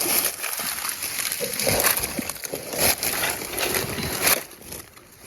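Irregular rustling and crunching noise, dense and uneven, dying away about four and a half seconds in.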